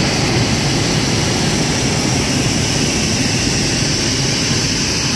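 A hot-air balloon's propane burner firing: a loud, steady rushing blast.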